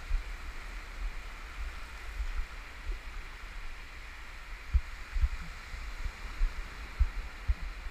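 Shallow surf washing up over a sand beach, a steady hiss of foamy water, with a low rumble and a few dull thumps on the microphone in the second half.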